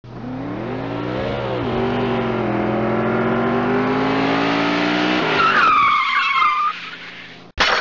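Car crash sound effect: an engine revving with its pitch slowly rising, then tyres screeching for about a second and a half and fading away. A sudden crash begins right at the end.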